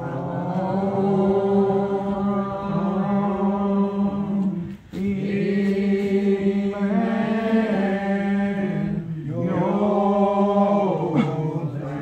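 Old Regular Baptist congregation singing a lined-out hymn unaccompanied, in the slow, drawn-out style: many voices hold long notes and slide between pitches. The singing dips briefly, for a breath, about five and nine seconds in.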